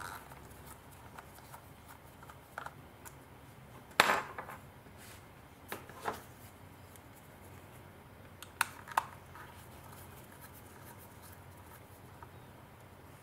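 A small screwdriver working the bottom screws of a Canon PowerShot G12 compact camera, with quiet handling of the camera body. A handful of sharp clicks and taps of metal and plastic: the loudest about four seconds in, a pair near six seconds and another pair near nine.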